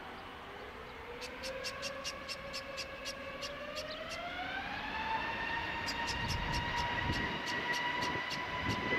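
Airbus A320neo's CFM LEAP-1A turbofans spooling up to takeoff thrust: a whine rising in pitch from about a second in until about five seconds, then holding steady while a deep rumble builds. A fast series of high clicks runs over it.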